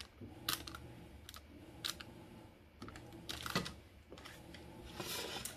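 Scattered light clicks and taps of kitchen utensils and containers being handled while icing ingredients are gathered, with a brief rustle near the end.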